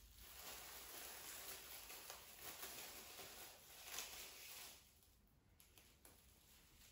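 Plastic cling film crinkling and rustling as it is handled and pulled off the roll, faint, dying down about five seconds in.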